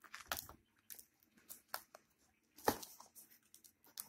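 Plastic shrink wrap on a DVD box set being picked at and crinkled as it is pulled off: a string of scattered sharp crackles, the loudest a little before three seconds in.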